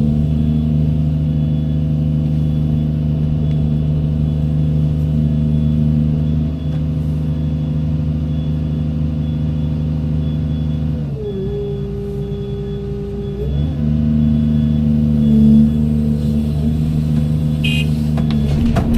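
Doosan 210W wheeled excavator's diesel engine running steadily under working load. About eleven seconds in the pitch shifts and a steady whine holds for a couple of seconds before the engine settles back to its earlier note.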